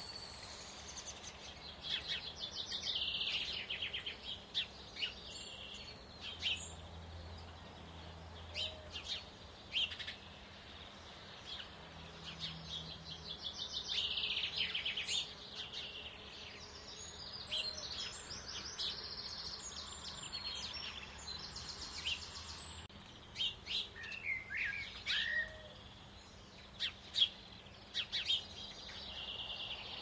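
Small songbirds singing and chirping, with several rapid high trills and short sharp calls.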